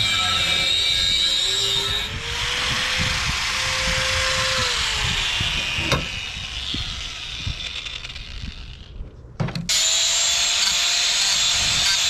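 Power tool at work: a rough grinding hiss with a motor note that rises, holds, then winds down about five seconds in. After a sudden cut, a different steady high-pitched machine sound runs.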